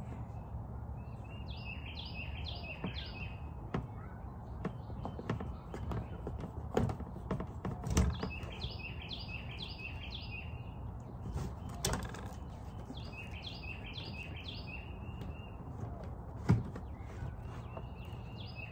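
A songbird singing the same short phrase of several quick notes four times, several seconds apart, over a steady low background rumble. Scattered clicks and knocks from hand tools and a hose being handled on a plastic tote lid.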